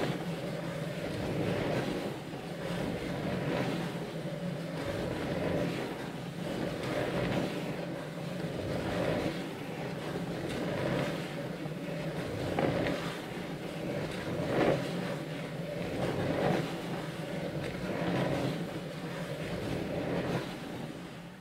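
Motorised wooden drawing machine running: a steady motor hum with its wooden gears and turntable turning, swelling and easing roughly every two seconds, until it stops at the very end.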